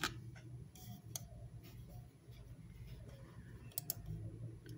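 Quiet room tone with a steady low hum and a few faint, scattered clicks, the sharpest a little before the end.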